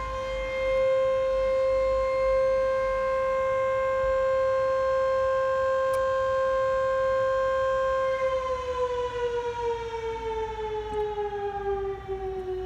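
Civil defence siren sounding a loud, steady tone until about eight seconds in, when its pitch starts to fall slowly.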